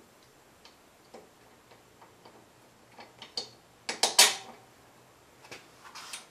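Small metal clicks and clinks of a bolt and nut being fitted as a rubber-gripped foot peg is mounted on a mini bike frame, with a short cluster of louder clanks about four seconds in.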